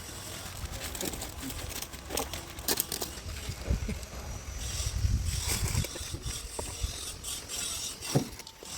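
Concrete slab work: scattered knocks and scrapes over a low rumble, with one sharper knock near the end.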